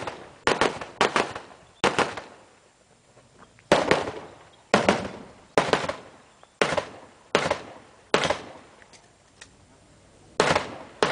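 Handgun shots in a timed shooting stage: about fifteen shots, some single and some in quick pairs, at irregular gaps of up to about two seconds, each trailing off in a short echo.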